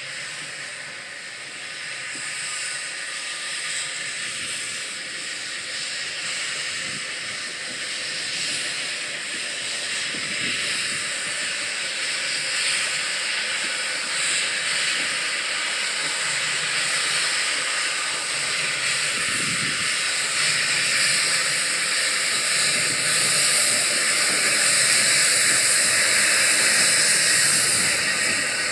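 Steady hiss of escaping steam from Lancashire & Yorkshire Railway Class 27 0-6-0 steam locomotive No. 52322, growing gradually louder through the second half.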